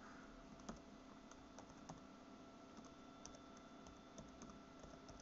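Faint typing on a computer keyboard: scattered, irregular key clicks over a low steady hum.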